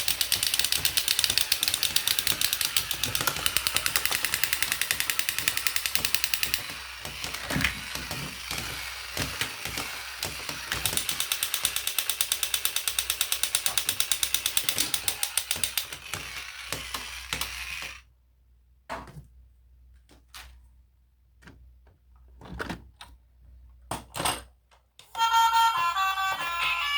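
A small toy vehicle's plastic gear mechanism runs with a fast, buzzing rattle of clicks, stops, and runs again, with scattered single clicks and knocks as the toy is handled. Near the end a short electronic toy melody starts.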